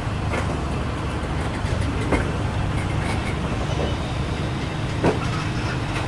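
Indian Pacific stainless-steel passenger carriages rolling past: a steady rumble of wheels on rail, with a few sharp clicks, the loudest about five seconds in.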